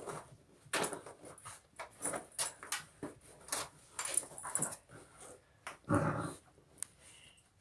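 Two dogs nosing and pawing through the fabric layers of a plastic dig toy. There are quick, irregular rustles, scratches and sniffs, with one louder, lower sound about six seconds in.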